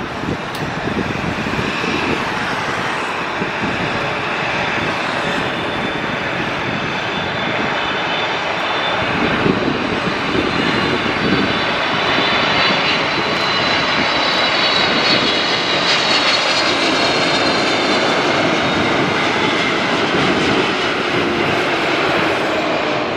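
Twin turbofan engines of a Boeing 777 airliner on final approach, a steady jet rumble that grows gradually louder as it descends toward the runway. A high engine whine comes in from about halfway through.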